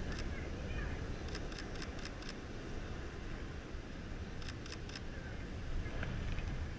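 Sony A6000 camera shutter firing in quick bursts: about five clicks a second and a half in, and three or four more about four and a half seconds in. Beneath them is a steady low rumble of wind and surf.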